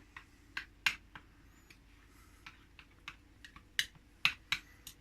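Irregular sharp clicks and taps of kitchen utensils as chopped herbs are moved into a bowl of yoghurt. The taps are loudest a little under a second in and again near the end.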